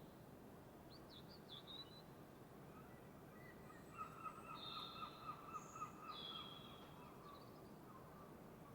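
Wild birds calling faintly at dawn over a steady low hiss: a few quick high chirps about a second in, then a run of about six short notes with higher calls over it between four and six seconds in.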